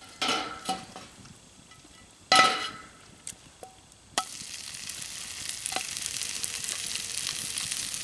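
Two ringing metallic clanks from the skillet on the grill grate. Then, about four seconds in, egg-dipped bread hits hot bacon grease and starts sizzling, a steady frying hiss with small pops as more slices go into the pan.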